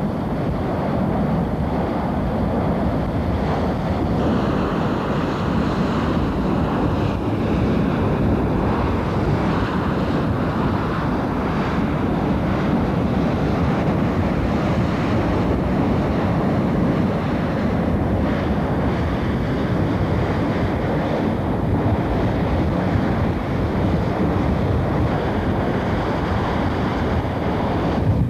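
Steady, unbroken rushing noise of a burning well blowout, mixed with wind buffeting the microphone.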